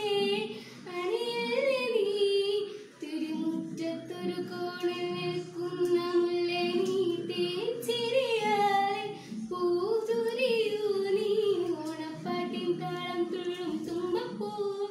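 A girl singing a song in a melodic, sustained voice, holding notes and gliding between them, with a short breath pause about three seconds in.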